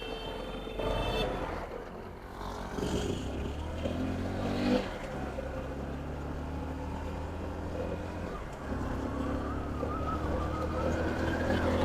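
Motorcycle engine running, its pitch rising over the last few seconds as it pulls away.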